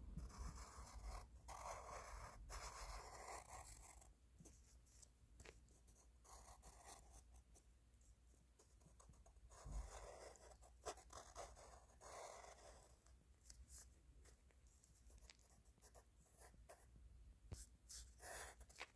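Graphite pencil scratching faintly across paper as lines are drawn, in two longer spells, over the first few seconds and again around the middle, with short strokes and light taps between.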